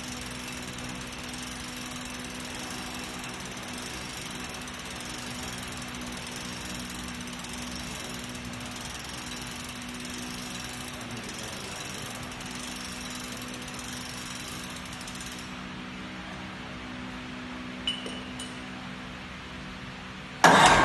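Cqstart spring starter on a Cummins NT855 diesel being wound up by hand with its ratchet lever, giving a steady run of rapid ratchet clatter. The winding stops a few seconds before the end and a single click follows. Right at the end the spring is released and the diesel turns over with a sudden, much louder burst.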